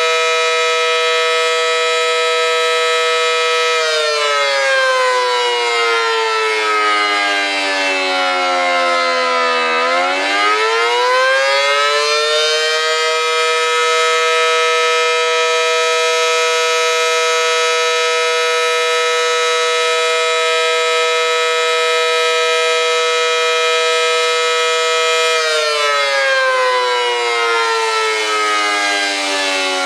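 Federal Sign & Signal Model 5T warning siren with a 9/12-port chopper sounding its two-tone chord: it holds a steady pitch, winds down over about six seconds, winds back up, holds steady for about twelve seconds, then starts winding down again near the end. This rise-and-fall is its attack signal, with uneven timing.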